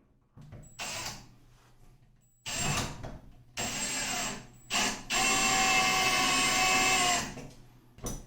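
Power drill fitted with a Phillips bit driving screws into wall anchors: several short runs of the motor, then one longer steady run of about two seconds, and a brief final burst.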